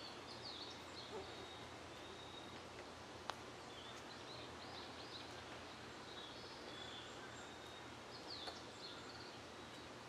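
Faint ambience of birds calling in short, high chirping phrases every few seconds over a steady background hiss, with one sharp click about three seconds in.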